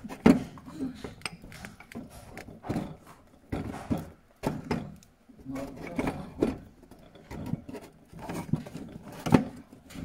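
Irregular light knocks and clatter of things handled on a table, a dozen or so separate hits spaced unevenly, the sharpest about a third of a second in and again near the end.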